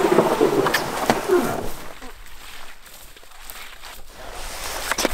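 A canoe being handled ashore through dry brush: a scraping, rustling hull with a few knocks for about two seconds, then lighter rustling and scattered twig snaps.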